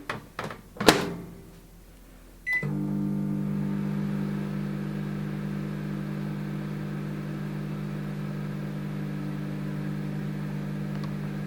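Microwave oven being started: a few knocks and a door shutting with a clunk in the first second, a keypad beep about two and a half seconds in, then the oven running with a steady hum. There is no crackle of arcing from the resin-encased aluminium foil inside.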